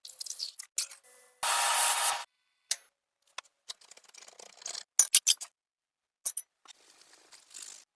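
Handling noises from a repair: a short scraping rub about one and a half seconds in, then scattered clicks and taps, a quick cluster of them around the middle.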